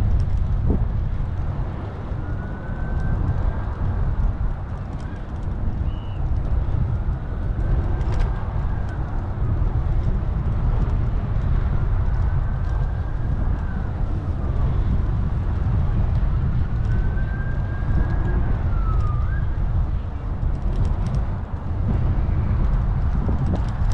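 Wind rumbling on the microphone of a moving bicycle, with a distant emergency-vehicle siren wailing faintly behind it, rising and falling about four times.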